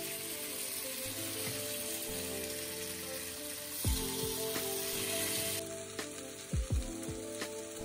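Sliced potatoes sizzling in hot oil in a frying pan as they are stirred, under background music with a few low beats.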